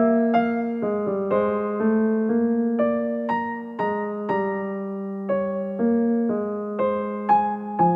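Background music: a gentle melody of single electric piano notes, about two a second, each fading away before the next.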